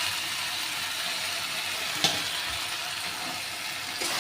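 Washed chicken pieces sizzling in hot oil and fried spice paste in a pan, a steady hiss with one short knock about two seconds in.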